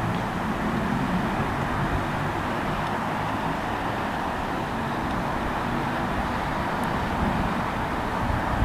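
Buses running along a concrete guided busway: a steady engine drone with road noise.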